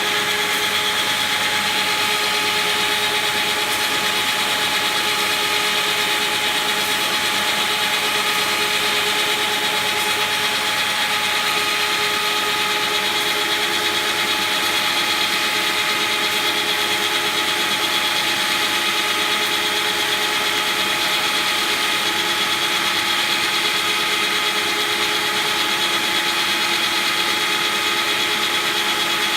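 Cosma SKS 7 copy milling and sanding machine running, a steady machine sound with a constant whine made of several held tones over a broad rushing noise, at an even level throughout.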